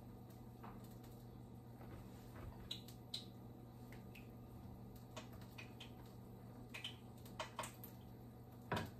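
Faint handling sounds of an egg roll wrapper being folded and rolled by hand on a plate: soft rustles and light taps, with a couple of sharper clicks about three seconds in, over a faint steady hum.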